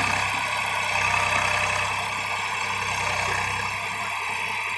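Swaraj 834 XM tractor's three-cylinder diesel engine running steadily under load as it pulls a loaded sand trolley, its rear wheels dug into loose sand.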